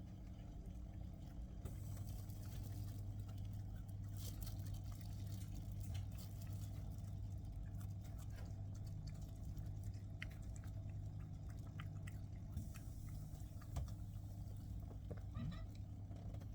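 A pet eating watermelon: small, scattered wet chewing clicks and ticks, over a steady low hum.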